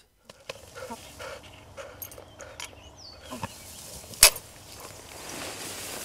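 Rustling of people moving through tall wet grass, growing louder over the last second or so, with a single sharp click about four seconds in.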